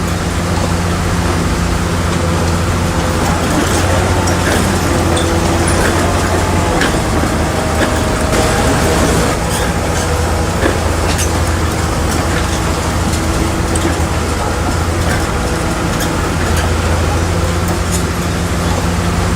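Bulldozer's diesel engine running steadily under load, with scattered metallic clanks.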